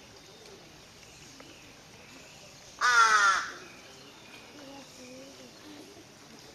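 A single loud animal call about three seconds in, under a second long and falling in pitch.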